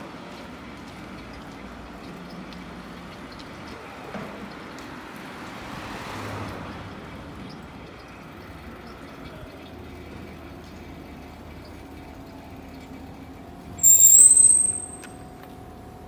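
Steady street noise near a railway station, with a loud high-pitched squeal lasting about a second near the end.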